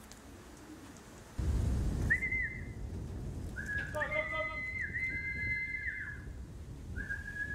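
Human whistling to call homing pigeons down to the loft: a series of steady high whistles with short slides up and down, at times two whistles at once. A low rumble of wind on the microphone sets in about a second and a half in.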